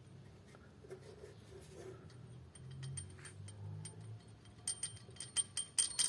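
Small metal parts clinking and clicking with a light ringing tone, in a quickening run over the last second and a half. They sound like loose engine sprockets being handled. A faint low hum comes before.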